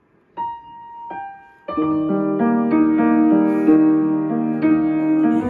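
Background music on soft piano: two single held notes, then gentle sustained chords from about two seconds in.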